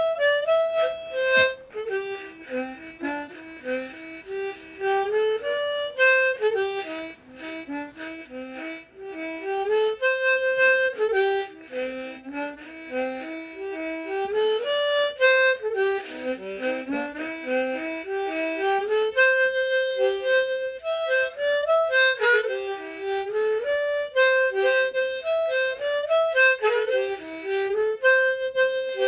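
An old, large harmonica with a low range, played solo: a quick polka melody of short stepping notes in repeating phrases, with no accompaniment.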